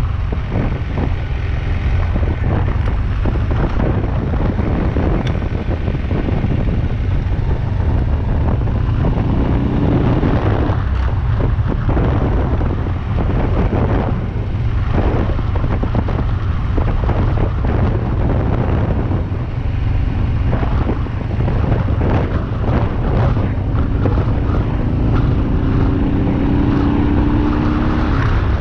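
BMW R27's 250 cc single-cylinder engine running under way, with wind rushing over the microphone. Its note rises twice as it pulls harder, briefly near the middle and for a few seconds near the end.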